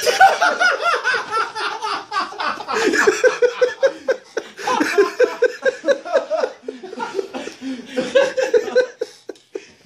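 Men laughing hard in rapid repeated bursts, dying down near the end.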